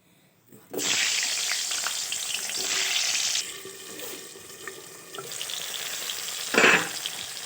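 Potato pieces sizzling in hot oil. The sizzle starts suddenly under a second in, eases after about three seconds into a steadier frying hiss, and a brief louder burst near the end comes as the pan is stirred.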